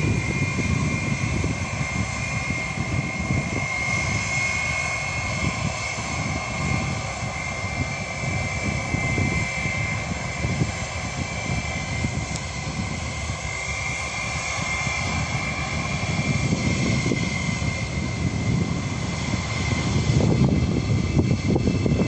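Airbus A320 airliner's twin jet engines running at taxi power: a steady high whine over a low rumble that gets louder near the end as the aircraft turns away down the runway.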